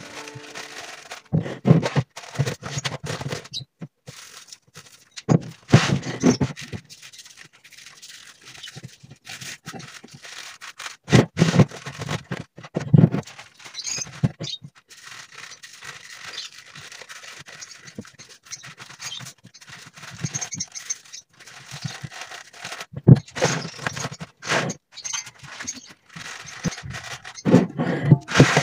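Leaves of a halved napa cabbage rustling and crunching under hands in irregular bursts, with quieter gaps between. The cabbage is being handled and salted for kimchi.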